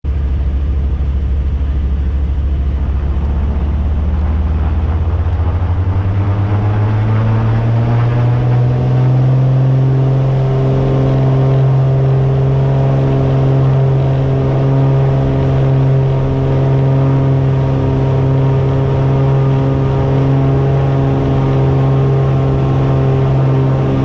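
Beechcraft Baron's two six-cylinder piston engines and propellers heard from inside the cabin, rising in pitch as power comes up about five to nine seconds in, then holding a steady high drone.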